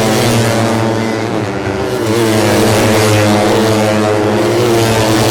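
Several tuned 150cc four-stroke underbone race motorcycles running hard on the track, their engine notes overlapping, falling and rising in pitch as they brake and accelerate.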